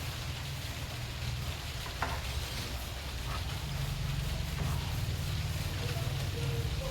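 Portable speaker giving a steady low hum under a dense crackling hiss, with one sharp pop about two seconds in. This is the crackling and popping fault being repaired.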